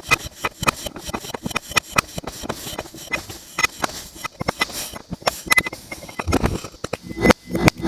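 Kinetic sand being cut and crumbled: a dense run of crisp, irregular crunching and crackling, with a few louder crunches near the end.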